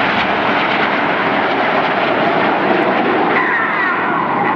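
BAE Hawk T1 jet trainers flying over in formation, their jet engines making a loud, steady roar. Near the end a whine falls in pitch as the jets pass.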